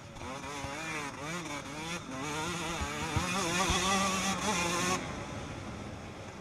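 Yamaha motocross bike engine revving hard, its pitch rising and falling with each throttle blip and gear change as it is ridden over a dirt track. It is heard from a camera mounted on the bike. About five seconds in the throttle closes and the engine drops to a quieter, lower running sound.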